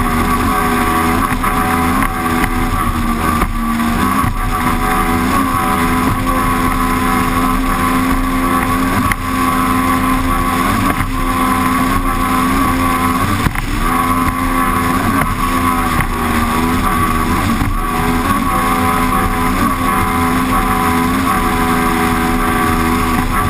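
Mercury Optimax Pro XS 200 two-stroke V6 outboard running flat out, heard close up, its pitch rising and dipping every second or two as the boat launches off the swells. A steady rush of spray and wind lies under the engine.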